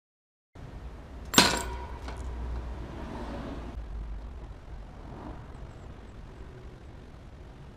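A wire fan guard with a plastic rim, rigged as a stick-and-string mouse trap, drops and hits the concrete once about a second and a half in, with a short rattle after. The trap has been sprung over the mouse. A low steady background hum runs underneath.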